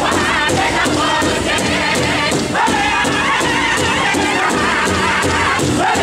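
A powwow drum group of men singing a Chicken Dance song in high, wavering voices over a steady, fast beat struck together on one large hide drum, with crowd noise underneath.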